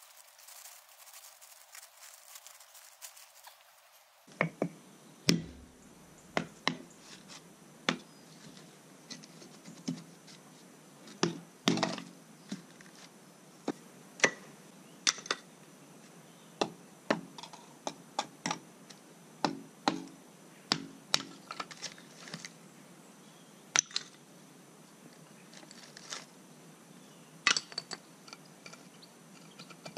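Sharp, irregular knocks and clinks of hand work on an old clay drain gully in a pit: tools and broken pieces of clay pipe being chipped and worked loose, about one every second or two, starting a few seconds in after a faint hiss.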